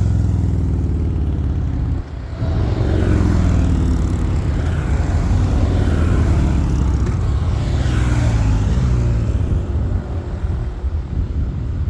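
A string of motorbikes riding past, their engines running together with the pitch sliding as each one goes by; the sound thins out near the end.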